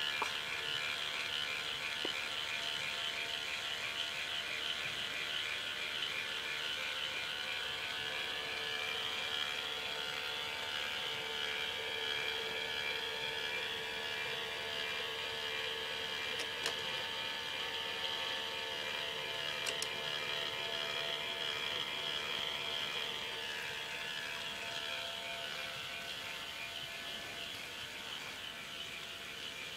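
A K'nex ball lift's motor and plastic gears running steadily: a whirring drone with a fast flutter, and two sharp clicks a few seconds apart about halfway through.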